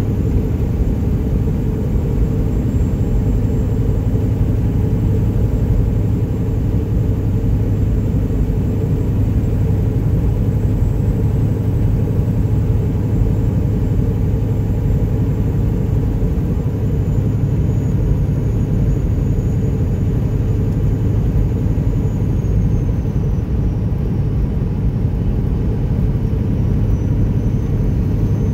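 Straight-piped Detroit Diesel Series 60 engine of a Peterbilt 379 running steadily at highway cruise, a constant low drone heard from inside the cab along with road noise.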